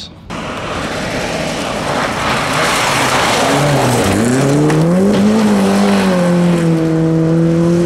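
Volvo 240 rally car sliding through a gravel corner at speed, its tyres spraying gravel in a dense hiss. Its engine note dips about four seconds in, then climbs and holds at high revs.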